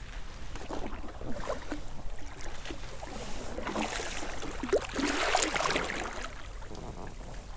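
Water splashing and sloshing beside a kayak, swelling to its loudest in the middle and easing off towards the end.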